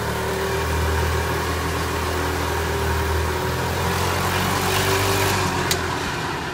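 Small engine of a 1987–89 EZGO gas golf cart running steadily with a loud exhaust as the cart drives off. There is one sharp click near the end.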